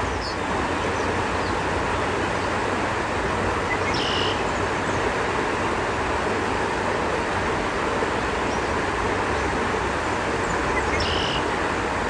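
Shallow river rushing over a rocky riffle, a steady, even rush of water. A bird gives a short high call twice, about four seconds in and near the end.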